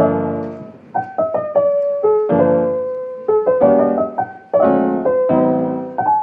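Background piano music: a gentle melody over struck chords, each note starting sharply and fading away.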